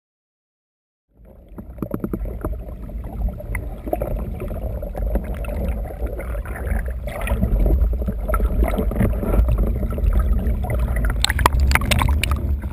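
Water moving and bubbling around an underwater camera: a steady low rumble with scattered clicks and knocks, starting about a second in, the clicks coming thicker near the end.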